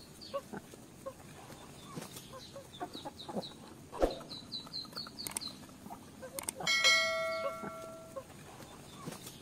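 Hens clucking softly, with short high chirps repeating in small groups. About seven seconds in, a single bell-like ring sounds and fades over a second or so.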